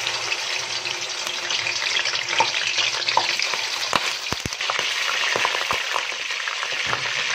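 Raw chicken pieces sizzling steadily in hot oil in a kadai (wok), with a few sharp knocks and splashes about four seconds in and again a little later as more pieces are dropped into the pan.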